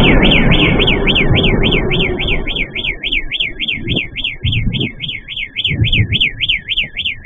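A car alarm wailing in a fast up-and-down siren sweep, about three and a half sweeps a second, set off after a missile explosion whose low rumble dies away over the first couple of seconds. Irregular low bumps of noise follow under the alarm.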